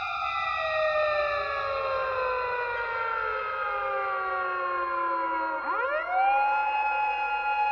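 Siren sounding several tones at once, sliding slowly down in pitch for about five seconds, then sweeping quickly back up and holding a steady tone near the end.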